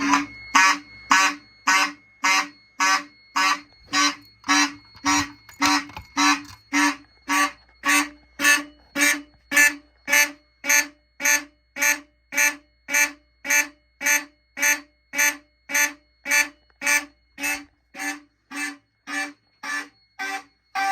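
DC fire alarm horns sounding in a coded pattern from a NAC coder set to standard electric time: short buzzing blasts at an even pace of about two a second. A faint steady high tone sounds underneath.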